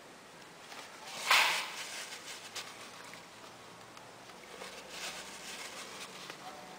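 A thin plastic sheet crinkling and rustling under a finger as thermal paste is rubbed across a laptop processor die through it. One loud crinkle about a second in, then lighter scattered rustles.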